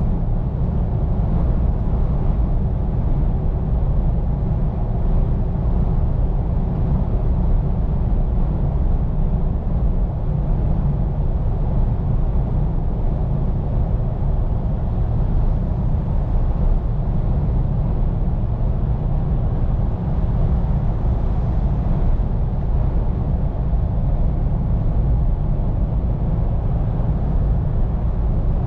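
Scania P410 truck on the move: a steady low rumble of engine drone and road noise, with no change in engine pitch.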